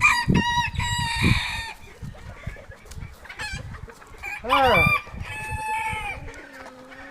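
Chickens clucking and crowing: several drawn-out calls in a row, the loudest about four and a half seconds in.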